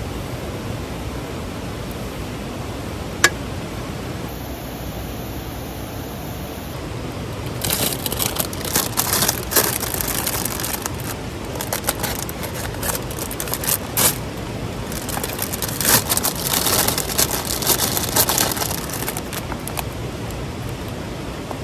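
Steady rushing of a mountain stream, with one sharp click about three seconds in and two long stretches of crunching, crinkling handling noise near the middle and again later.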